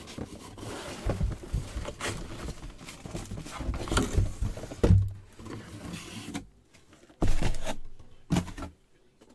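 Handling noises: irregular knocks, rustles and scrapes of items being moved on a table, with a louder thump about five seconds in and another about seven seconds in.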